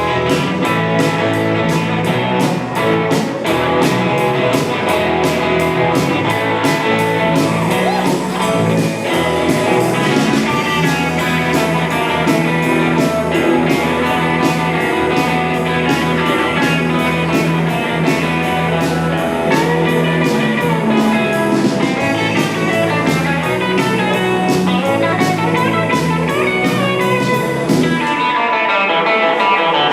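Band playing a fifties rock and roll number, an instrumental stretch with guitar to the fore over drums keeping a steady beat.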